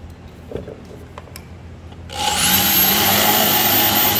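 A few light knocks of plywood being handled, then about halfway through a corded electric drill starts and runs at high speed with a steady high whine, boring a screw hole in the plywood side panel of a bookshelf.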